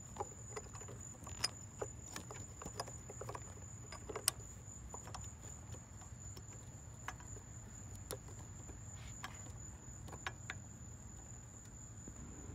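Irregular light metallic clicks and taps as a small 10 mm wrench is worked onto a hard-to-reach bolt on a power steering pump, the tool knocking against the bolt and nearby engine parts, over a steady low hum.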